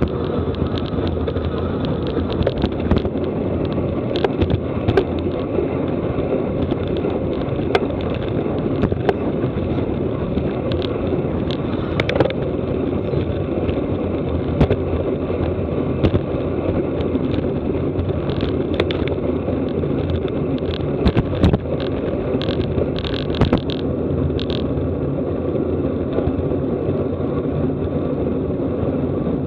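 Steady rush of wind and tyre noise from a road bicycle ridden at race speed, buffeting the rider's camera microphone, with scattered sharp clicks.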